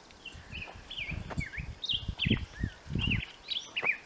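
A songbird singing a rapid series of short, slurred whistled notes. Beneath it, a run of low thumps, loudest in the middle.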